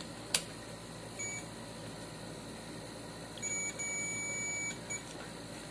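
UNI-T UT50B multimeter's continuity buzzer beeping as its probes bridge a zero-ohm jumper resistor: a short beep about a second in, then a steady high beep lasting over a second, and a brief chirp near the end. The beep signals continuity through the jumper, whose reading is near zero ohms. A light click comes just after the start.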